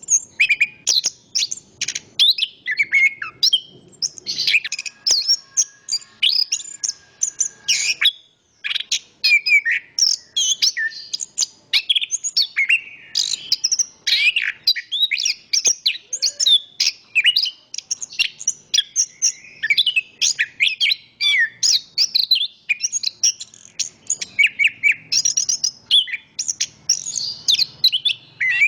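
Chestnut-capped thrush (anis kembang) singing a rapid, varied song of short high notes and trills with hardly a pause. There is a brief break about eight seconds in.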